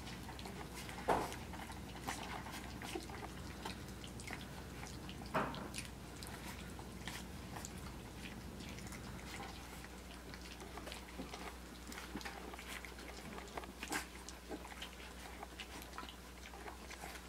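A litter of Australian Shepherd puppies eating puppy mush from a shallow pan: a busy run of wet lapping, licking and chewing clicks. A few louder clicks come about a second in, around five seconds, and near fourteen seconds.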